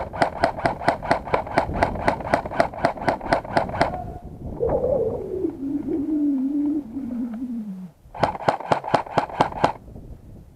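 Airsoft gun firing a rapid burst of about twenty shots over some four seconds, then a shorter burst of about eight shots near the end. Between the bursts comes a drawn-out voice call falling steadily in pitch.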